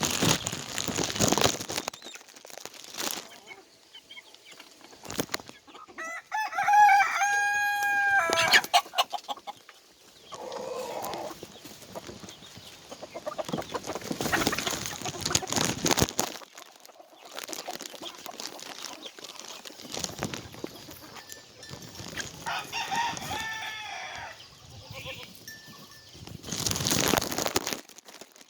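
Chickens clucking, and a rooster crowing: one loud crow several seconds in and a fainter one a little past two-thirds of the way through. Bursts of rustling noise come and go between the calls.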